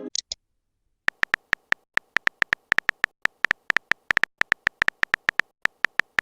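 Phone keyboard typing sound effect: a rapid, uneven run of short, sharp clicks, several a second, starting about a second in as a text message is typed out.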